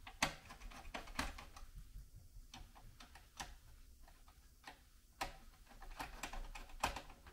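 Faint, irregular clicks and ticks of a flathead screwdriver working the spring-loaded corner screws of a CPU heatsink, metal on metal as the screws are backed out and jump free of their threads.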